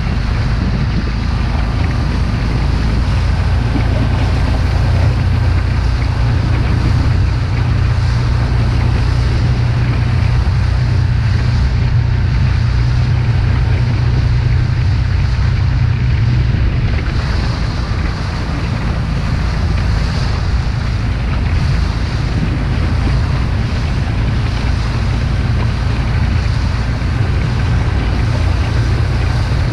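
Small outboard motor running steadily on an inflatable boat crossing choppy water, under heavy wind buffeting on the microphone and water splashing on the hull. The low rumble eases a little about seventeen seconds in.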